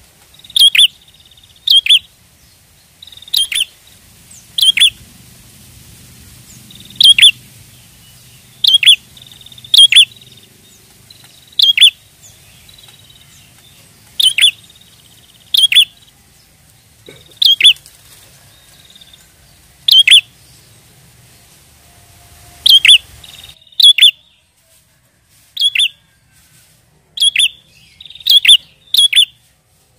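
Prinia (prenjak) calling: loud, short, sharp high chirps, singly or in quick runs of two or three, every second or two.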